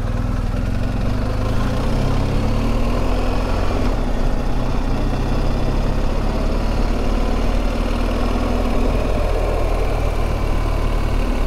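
BMW GS boxer-twin motorcycle engine running under way at low road speed, its note rising and falling a little with the throttle. An even hiss of wind and tyre noise lies over the engine.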